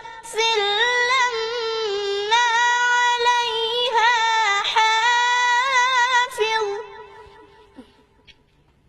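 A high-pitched voice reciting the Quran in melodic tajwid style, holding long drawn-out notes with gentle ornaments. The recitation stops about six and a half seconds in and the sound falls away to near quiet.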